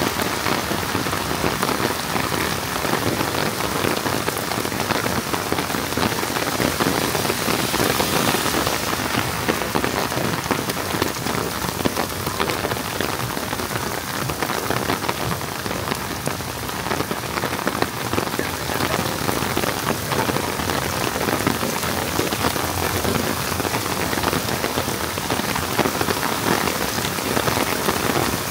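Heavy rain pouring down in a steady, dense hiss of countless raindrops hitting the ground.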